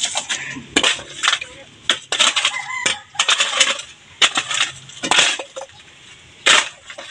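Steel shovel scraping and crunching into gravelly, stony soil in repeated strokes at irregular intervals.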